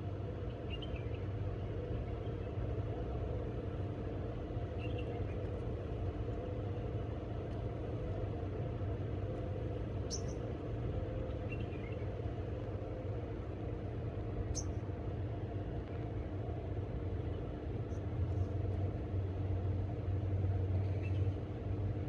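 Steady low rumbling hum of machinery or traffic, a little louder near the end, with a few faint, short, high chirps now and then and a couple of sharp ticks.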